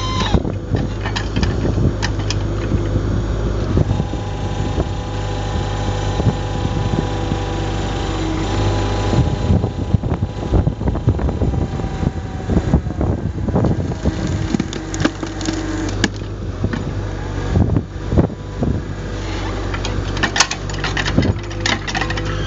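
3-ton excavator's engine running steadily while its hydraulic cone splitter screws into knotty beech logs, with a steady whine over the engine hum. Irregular cracks and knocks come as the wood splits and pieces fall, most densely in the middle of the clip.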